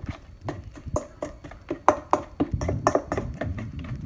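A utensil stirring thick ketchup and brown sugar glaze in a stainless steel mixing bowl, knocking and scraping against the metal in quick, irregular clicks as it breaks up clumps of brown sugar.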